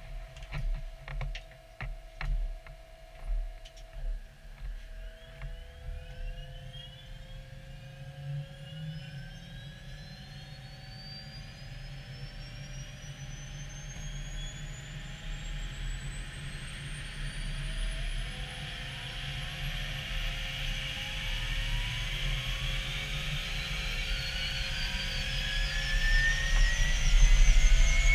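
Helicopter turbine engine spooling up at start-up: a whine that rises steadily in pitch and grows louder. A few clicks come in the first few seconds.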